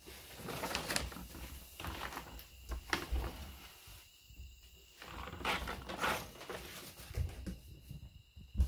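Rustling and crinkling of a white protective bag being pulled off a subwoofer, in several uneven bursts, with handling noises, and a low thump near the end.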